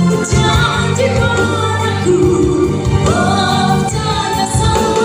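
A pop ballad playing, with a sung vocal line over instrumental accompaniment.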